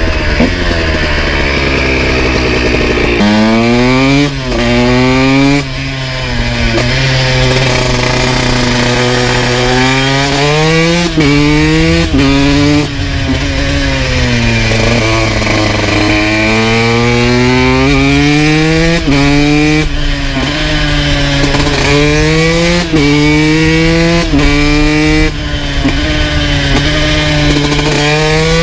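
Honda CR125's two-stroke single-cylinder engine, breathing through a full FMF exhaust, revving hard under way. It climbs in pitch again and again, with a sharp drop at each gear change, over a low wind rumble on the microphone.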